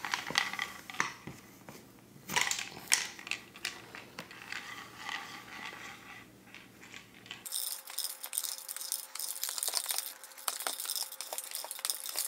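Reusable sticky lint roller rolling over a cotton t-shirt, its tacky surface crackling as it peels off the fabric. The crackle is a rapid run of small clicks, thinner and denser from about halfway through.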